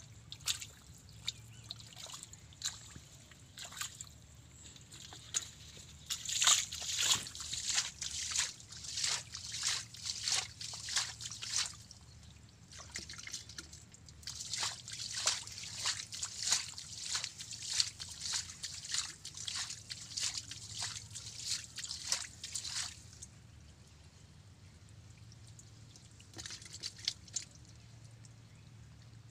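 Hands digging and scooping in wet, sloppy mud: a quick run of wet squelches and splats that thins out near the end.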